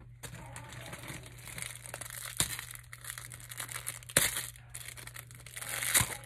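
Close, continuous rustling and crinkling as fidget toys and a fleece sleeve are handled right by the microphone, with three loud knocks about two and a half, four and six seconds in.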